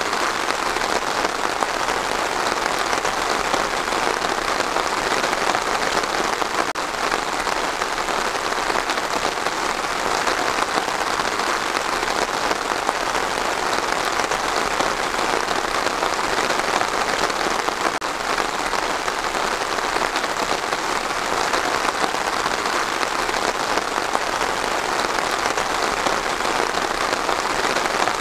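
Steady rain falling, an even hiss that keeps on without a change.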